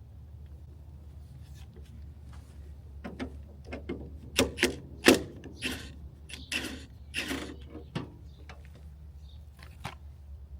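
A run of sharp metallic clicks and clanks, densest in the middle few seconds with the loudest about halfway, as a part is worked off the engine by hand, over a low steady hum.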